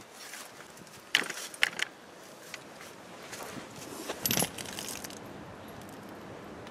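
A few sharp metal clicks and clinks from a lever-action grease gun being handled, its hose coupler pushed onto a zerk grease fitting on the snow plow's frame. A couple of clicks come about a second in, and a brighter ringing clink a little after four seconds.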